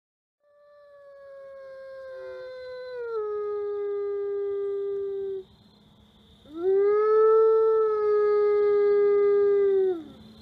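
Arctic gray wolf howling solo: two long howls. The first fades in and steps down in pitch partway through. The second swells up quickly, holds level, then falls away at the end.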